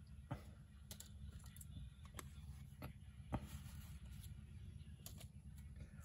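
Faint, irregular clicks and taps of small paper and card die-cut pieces being picked up and set down on a craft table, over a low steady hum.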